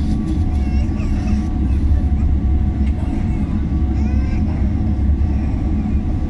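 Cabin sound of a Boeing 777-300ER taxiing: a steady low rumble from its GE90 engines at low power and the rolling airframe, with a faint steady whine. Faint voices sit under it.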